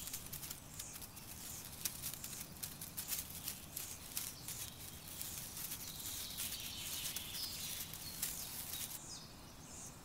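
Faint, rapid clicking and rustling, like small insects scrabbling over soil and dry leaves, over a soft outdoor nature ambience with a few faint high chirps in the second half.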